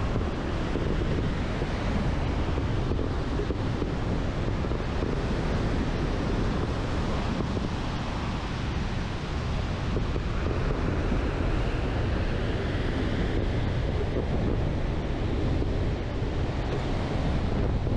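Steady rush of wind over the microphone of a camera mounted on a hang glider's wing in flight.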